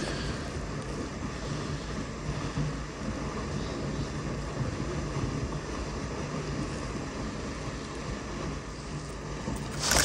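Steady rushing outdoor ambience with no distinct events: an even hiss of wind and moving water, the same loudness throughout.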